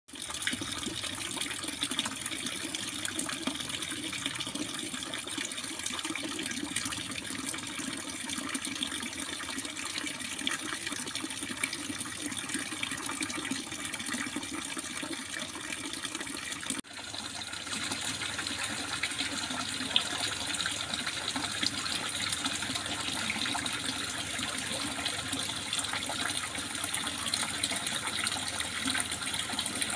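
Water trickling and splashing continuously, a steady babbling flow, with a brief break a little past halfway where the sound dips and resumes slightly brighter.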